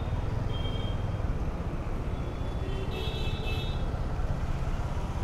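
Motorcycle riding through city traffic: a steady low engine and road rumble, with wind noise on the helmet or bike camera. A few brief high-pitched tones cut through, the clearest about three seconds in.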